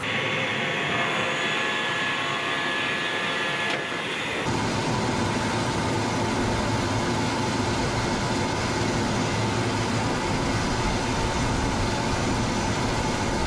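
Steady machinery noise from an Iskander missile launcher, its gas-turbine-driven power unit running as the missile is raised to vertical before launch. For about the first four seconds a higher hiss dominates. It then gives way to a fuller, lower steady running noise with a hum.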